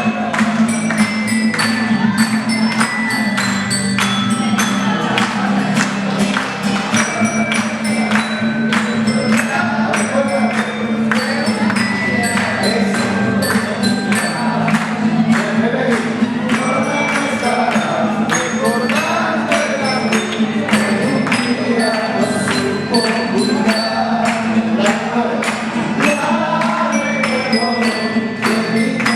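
Live folk song with group singing over quick bright struck notes, a steady jingling tambourine-like rhythm and a low held drone. The singing voices grow stronger about a third of the way in.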